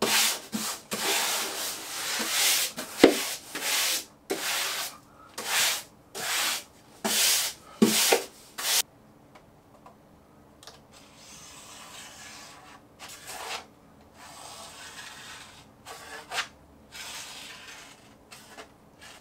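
A wallpaper smoothing brush swept hard over peel-and-stick wallpaper, about a dozen quick scraping strokes that press the air out from under the sheet. After about nine seconds come softer, longer scrapes as a utility knife trims the excess along a wide metal blade guide.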